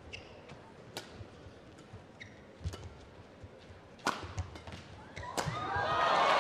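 Badminton rally: sharp racket strikes on the shuttlecock about every one and a half seconds, with squeaking shoes and footfalls on the court floor. Near the end the crowd breaks into cheering and applause as the rally ends.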